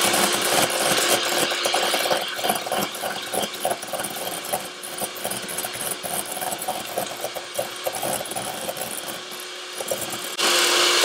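Electric hand mixer running steadily, its beaters whisking egg yolks and sugar in a stainless steel bowl, with an irregular clatter of the whisks against the metal. The yolks are being beaten until pale and fluffy. The mixer gets louder about ten seconds in.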